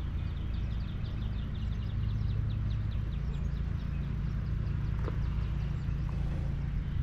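Steady low outdoor rumble, with a small bird singing a fast trill of short repeated high notes over the first few seconds.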